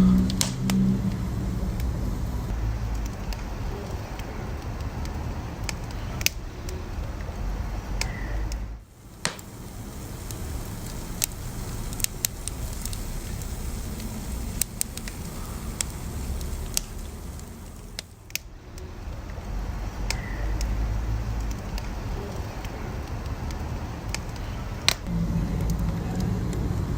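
Wood fire burning with a steady low rumble and scattered sharp pops and crackles from the burning logs; the sound dips briefly twice.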